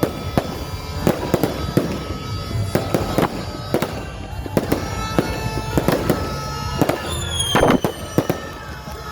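Fireworks display: rapid, irregular bangs and crackling bursts, with a whistling firework falling in pitch about seven and a half seconds in.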